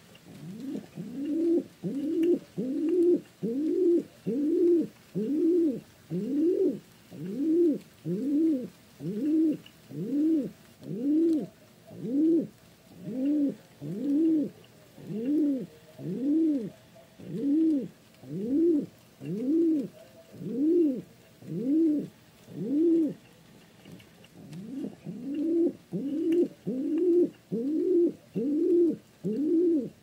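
Pigeon cooing over and over: a low coo that rises and falls in pitch, repeated about one and a half to two times a second, with a brief pause near three quarters of the way through.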